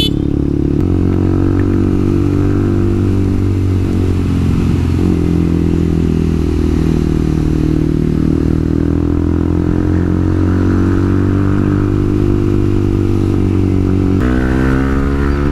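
Yamaha R15 v2's single-cylinder engine running steadily under way on a ride. Its note changes about a second in and again near the end.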